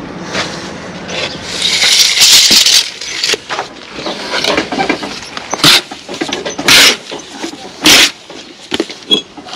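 Brick trowel scraping and chopping sand-and-cement mortar on a mortar board: a longer scraping stretch early, then a few sharp scrapes about a second apart.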